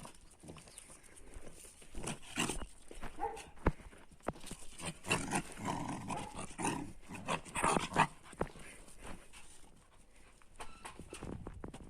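Dogs play-fighting, with irregular bursts of scuffling and snapping noises. The noises are busiest from about two to eight seconds in.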